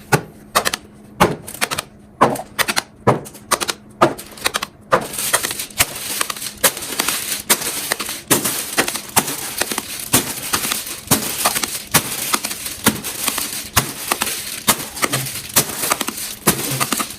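Fidget toys being clicked and popped by hand. Sharp single clicks come about once or twice a second at first, then from about five seconds in a denser run of clicks over a steady hiss.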